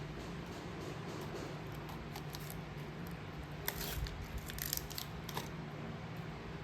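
A scatter of small, sharp clicks and crinkles about halfway through, over a steady low hum.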